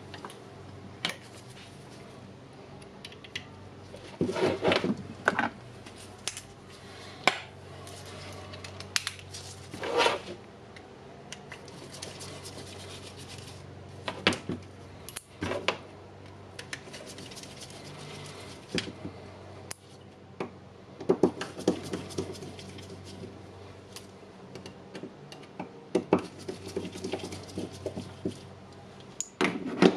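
Hand tools and small metal parts clicking, tapping and scraping at irregular intervals as small screws are taken out of a cordless impact wrench with a screwdriver, over a steady low hum.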